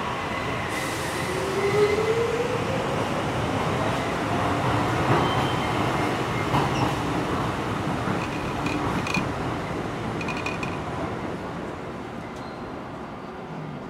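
Docklands Light Railway train pulling away from a station: a rising whine over the rumble of its wheels on the rails, then fading away over the last few seconds.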